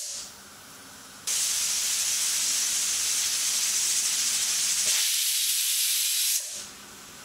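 A Prestige Deluxe Alpha stainless steel pressure cooker whistling: steam jets out hissing from under its weight valve. A hiss fades out at the start, then a second loud, steady hiss starts abruptly about a second in, lasts about five seconds and dies away. Each whistle is the sign that the cooker is at full pressure; two of them mark the sambar as cooked.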